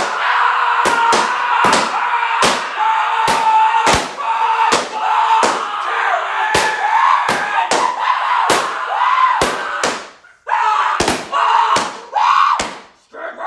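A rapid series of sharp bangs, about two a second, over a steady, wavering tone. It drops out briefly about ten seconds in, then the bangs resume.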